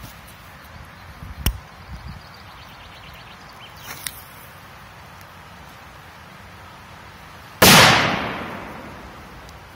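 A small triangle firecracker: a short crackle as its fuse is lit about four seconds in, then, near the end, one loud bang that dies away over about two seconds.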